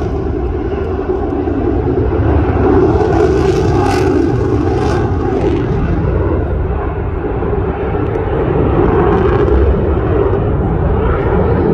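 F-16 fighter jet in flight, its engine noise a loud, steady rumble heavy in the low end.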